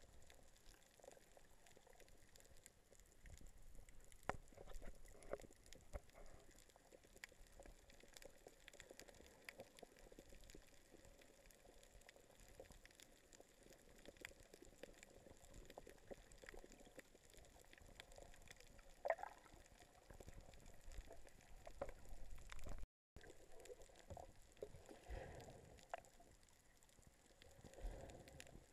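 Faint underwater ambience recorded with the camera submerged: a low crackle of small scattered clicks, with a few louder swishes and bubbling of moving water. The sound drops out for a split second about two-thirds of the way through.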